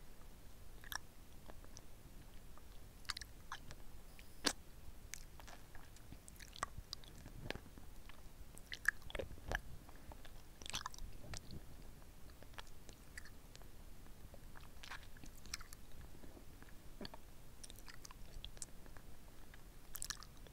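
Licking and sucking on a red lollipop, close-miked on a mini microphone at the lips: irregular wet mouth clicks and smacks, with a few louder pops.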